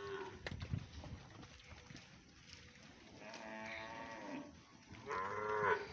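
Farm animal calling twice: a call a little after three seconds in, then a louder, higher one near the end. A couple of knocks come in the first second.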